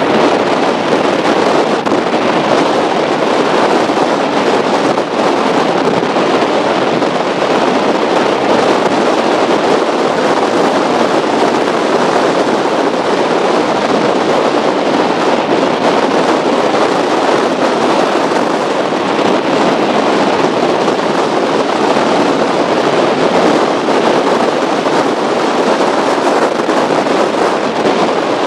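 Steady, loud rush of wind and water on a camera mounted on the bow of a speedboat running at speed over choppy water, with the boat's noise buried in the wind blast on the microphone.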